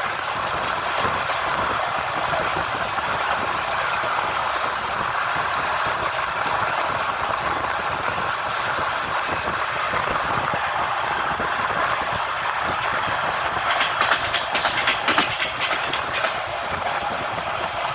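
Train wheels rolling on the rails with a steady rumble, and a quick run of louder clacks as the wheels pass over rail joints near the end.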